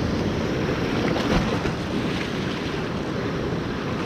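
Ocean surf washing steadily against the shore, with wind rumbling on the microphone.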